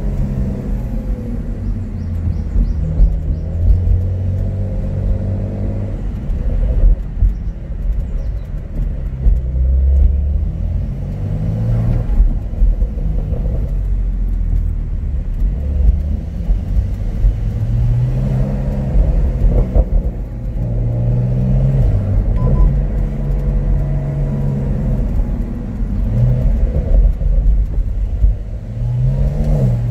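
Porsche 911 (992) flat-six engine with sports exhaust, heard from inside the cabin through a phone's built-in microphone as the car drives, its note rising and falling repeatedly as it accelerates and eases off.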